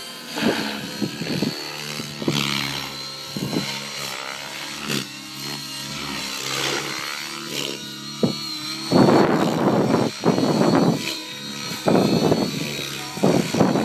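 Electric RC 3D helicopter (Synergy E5 stretch on a 12-cell pack with 695 mm blades) flying aerobatics: a steady high motor whine over rotor blade noise that shifts in pitch as the head speed and blade pitch change. From about nine seconds in the blade noise turns much louder and rougher in several stretches as the helicopter works low and hard.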